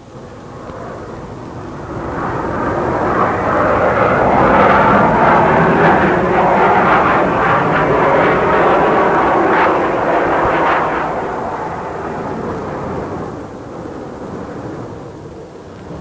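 Aircraft flying past: a rushing engine noise that swells over the first few seconds, holds loud, and fades away in the last few seconds.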